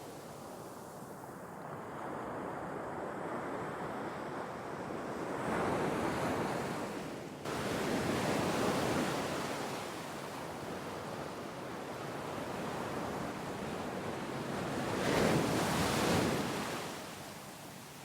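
Gentle sea waves washing ashore: a steady rush of surf that swells with each wave, building about six seconds in and most strongly around fifteen seconds in. A sudden momentary drop just past seven seconds breaks the sound before the rush resumes.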